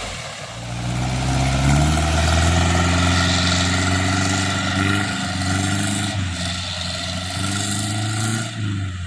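Engine of an old Mitsubishi Willys-type 4x4 jeep running under load: the revs pick up about a second in and hold steady, dip briefly near the middle, then pick up again.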